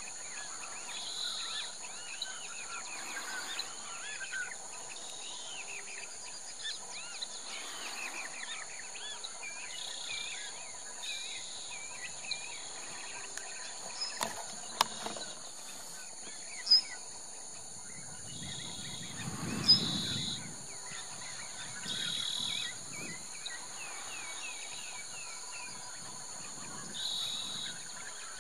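Outdoor woodland ambience: a steady high-pitched insect drone with birds chirping and calling throughout. A few sharp clicks come about halfway through, and a brief low rumble about two-thirds of the way in.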